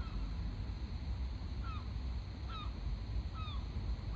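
A bird calling repeatedly, short falling calls about one a second, over a steady low rumble.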